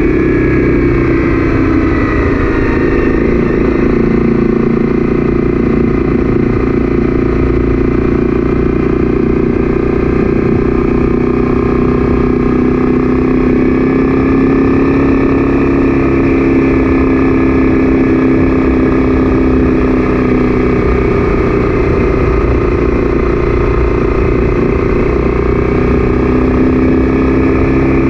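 Honda CB300F's single-cylinder engine running steadily while riding at cruising speed, its note dropping briefly in the first couple of seconds and then drifting gently up and down.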